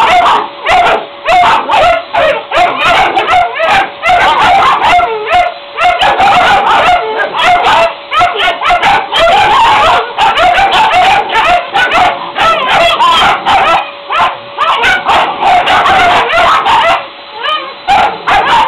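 Airedale terrier puppies barking and yapping nonstop in a dense, overlapping stream of high yips, with a steady hum underneath.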